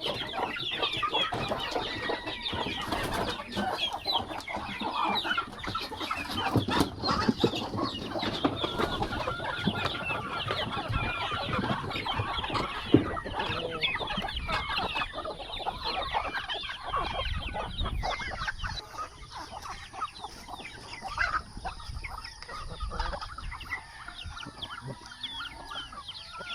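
Chickens clucking and calling over one another, many short calls overlapping, growing somewhat sparser in the second half.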